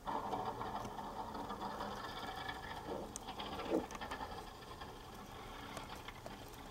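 Ford F-250 pickup's engine running as the truck pushes snow with its front plow, heard from a distance, louder for the first few seconds and then easing off.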